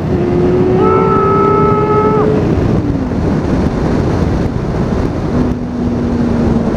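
Kawasaki ZZR600 inline-four sportbike engine pulling under acceleration, its tone rising slowly for about two seconds and then falling away. Heavy wind rush on the microphone runs under it, and a lower, steady engine note comes in near the end.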